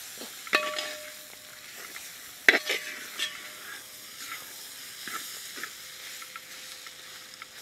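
A metal ladle stirring a thick onion-tomato masala being fried with spice powders in a large metal pot, with a steady sizzle. The ladle clanks sharply against the pot about half a second and two and a half seconds in, each clank leaving a short ring, with smaller scrapes between.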